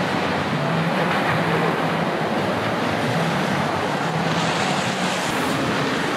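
Steady city street ambience: a wash of traffic noise, with a faint low hum that comes and goes.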